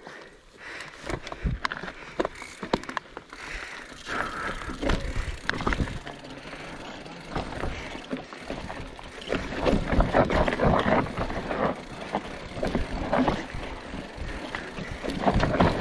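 Mountain bike rolling down a rocky dirt trail: tyres on dirt and rock with frequent clicks, knocks and rattles from the bike, growing louder about halfway through.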